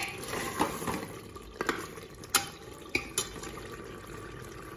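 A steel ladle stirring minced beef in an open aluminium pressure cooker, clinking against the metal pot about five times, over a low sizzle of the keema frying on high heat.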